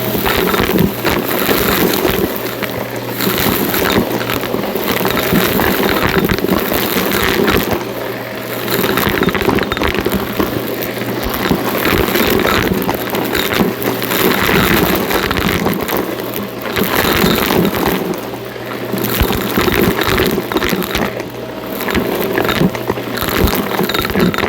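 Shark NV351 upright vacuum running with its steady motor hum while sucking up crunchy debris that crackles and rattles through it. The loudness rises and falls every few seconds as it is pushed back and forth.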